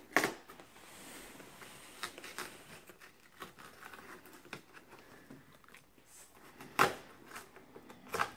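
A blade slitting the packing tape along the seam of a cardboard shipping box, then the tape and flaps being worked open by hand: faint scraping and tearing with a few sharper scrapes, the loudest right at the start and another near the end.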